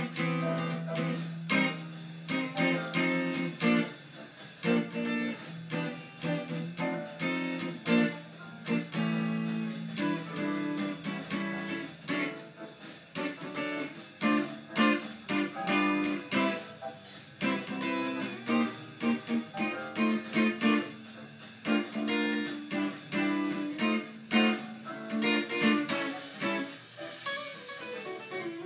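Guitar playing a bebop jazz tune: a quick stream of plucked notes over held lower notes.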